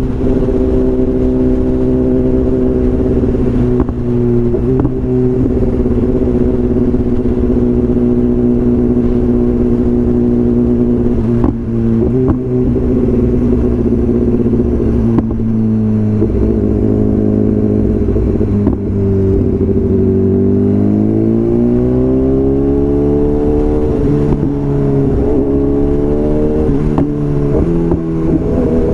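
BMW S1000RR inline-four engine running through a full Akrapovič exhaust at steady, fairly high revs. About two-thirds of the way through, the note falls and then climbs back up, with a few short cracks along the way.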